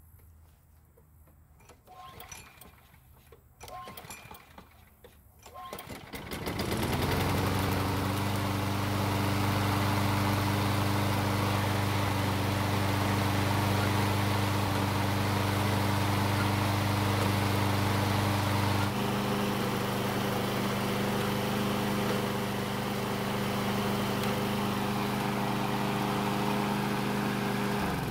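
Briggs & Stratton single-cylinder engine on a Craftsman walk-behind mower starting after being heavily overprimed. A few faint knocks come first; then about six seconds in the engine catches, quickly settles and runs steadily. Its note changes about two-thirds of the way through.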